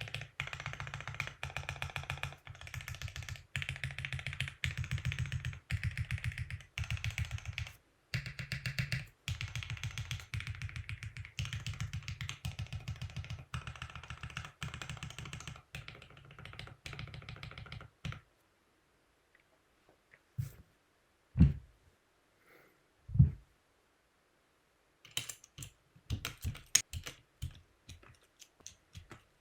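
Fast, continuous typing on a mechanical keyboard fitted with aftermarket keycaps. It stops after about eighteen seconds, leaving a few isolated key strikes that include two louder, deeper thuds, and the typing starts again near the end.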